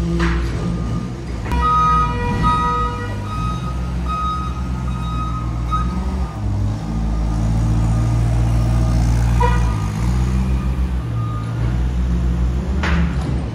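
Diesel semi-truck engine idling steadily, with a pulsing high electronic beep between about two and six seconds in and a couple of short hisses later on.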